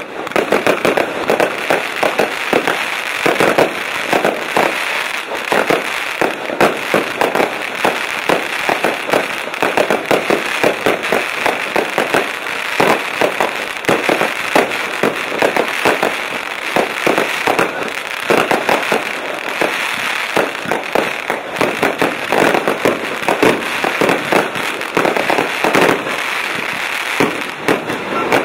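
Fireworks going off in a rapid, dense barrage of bangs, several a second without a pause, beginning abruptly.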